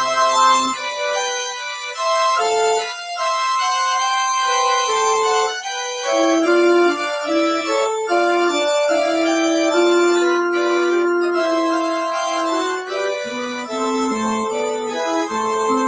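Organ playing slow, sustained chords with a moving upper line, the closing music of a church service. The deep bass notes drop out early on and come back about thirteen seconds in.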